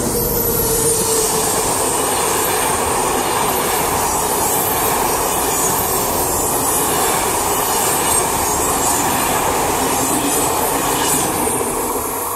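Intercités train of Corail coaches hauled by a BB 26000 electric locomotive passing: a steady, loud rolling noise of wheels on rail that fades near the end as the last coaches go by.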